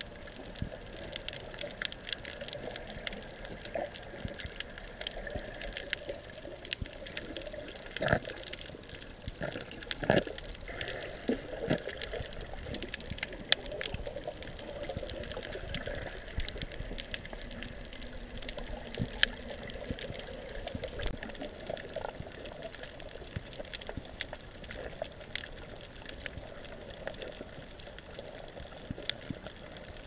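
Underwater ambience recorded through a submerged camera over a coral reef: a steady, muffled water sound peppered with scattered crackling clicks, with a few louder knocks about a third of the way in.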